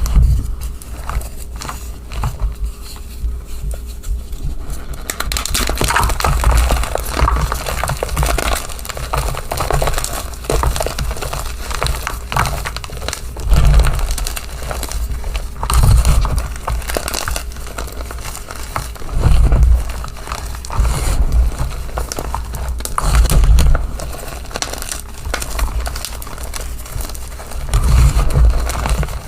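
Reformed gym chalk being crushed and squeezed, crunching and crackling densely, with a louder squeeze every few seconds. It is quieter for the first few seconds.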